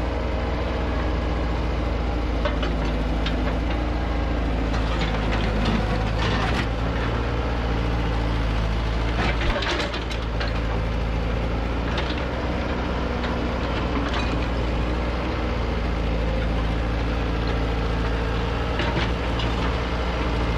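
Diesel engines of a Bobcat T190 compact track loader and a mini excavator running steadily. Several sharp clanks of the excavator's bucket working broken concrete slabs are heard along the way.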